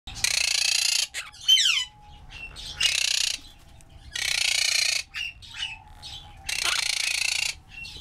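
Quaker parrot (monk parakeet) calling: four loud, harsh screeches of about a second each, with shorter falling chirps between them.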